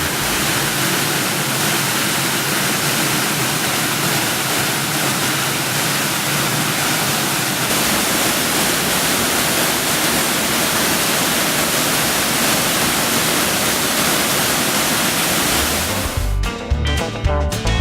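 Waterfall pouring with a loud, steady rush of water. Background music comes in near the end.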